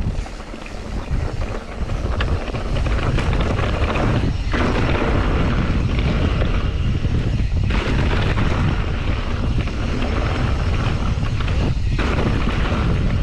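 Wind buffeting the microphone of a camera riding along on a mountain bike, mixed with the rumble of the bike rolling over the dirt trail. It grows louder about two seconds in and then stays steady.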